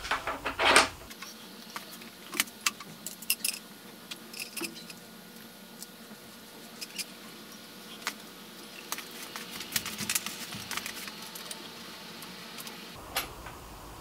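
Scattered light metallic clicks and clinks from a bicycle stem and small tools being handled as the stem goes onto a fork steerer tube. There is a louder cluster of clicks in the first second.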